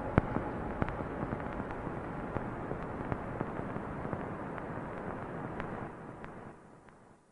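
Outro of a dubstep track: a dense noise wash scattered with crackles and pops, with the loudest pop just after the start, fading out over the last second or so.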